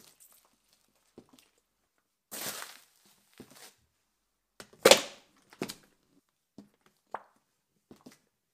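A high heel stepping on and crushing small fruit and squeezing a tube on a hard floor: a string of separate squelches and cracks with short silences between them. The loudest and sharpest comes about five seconds in.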